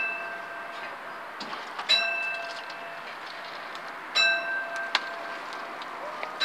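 Level crossing warning bell striking about once every two seconds, each strike ringing out for about a second, as the crossing warns of an approaching train.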